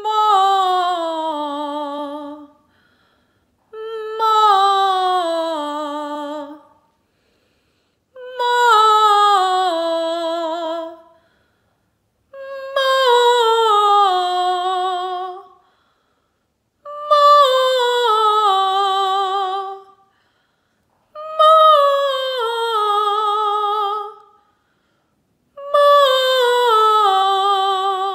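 Unaccompanied trained female voice singing a vocal resonance exercise: seven repetitions of a descending five-note scale on an open vowel, each ending with vibrato, with short pauses between them and the starting note mostly rising a step from one repetition to the next.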